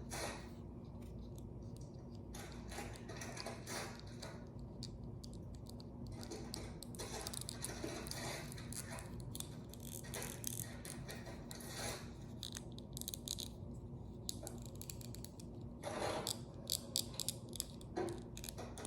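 Small plastic toy pieces and packaging being handled: scattered clicks, taps and rustles over a low steady hum, with a few sharper clicks near the end.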